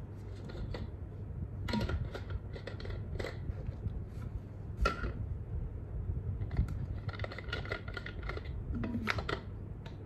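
Frosted plastic water bottle being handled: scattered clicks, taps and rustles in small clusters as its straw and cap parts are taken out and fitted together, over a low steady hum.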